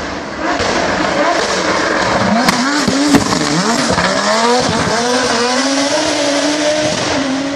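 Race car engine revving up and down through quick gear changes, with two sharp cracks about two and a half and three seconds in, then holding a steady high note.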